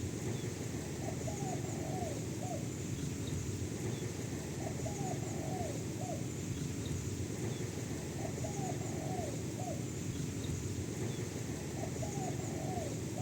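A dove cooing: four short phrases of a few notes each, about every three and a half seconds, over a steady low hiss.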